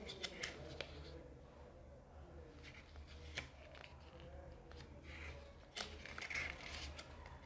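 Pages of a small paper user manual being turned and handled: faint rustling with scattered light crinkles and flicks, a little busier near the end.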